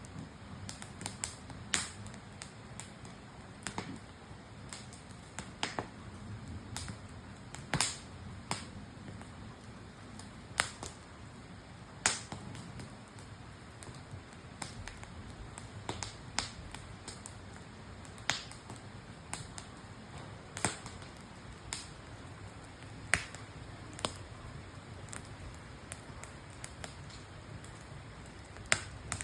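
Wood campfire crackling: irregular sharp pops and snaps, a few a second and some louder than others, over a soft steady rush of burning.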